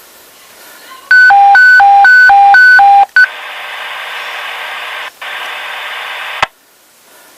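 Dispatch alert tone over a police/fire scanner: a loud high-low warble, alternating between two pitches about twice a second for about two seconds. It is followed by the hiss of an open radio transmission with a brief break, and a squelch click near the end. It is the attention tone that comes before a county-wide all-agencies broadcast.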